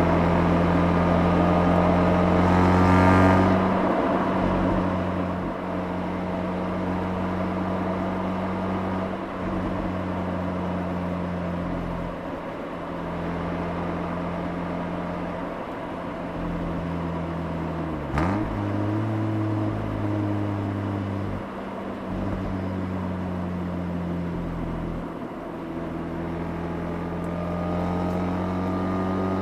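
Mazda RX-8's two-rotor Wankel rotary engine heard from the exhaust at the rear bumper while driving: revs climb briefly at the start, fall back to a lower steady pitch at light throttle, dip sharply and recover about two-thirds of the way through, then climb again near the end under acceleration.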